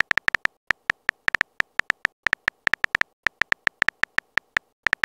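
Phone keyboard typing sound effect: a quick, uneven run of short, sharp clicks with a slight beep to each, several a second, as a message is typed out.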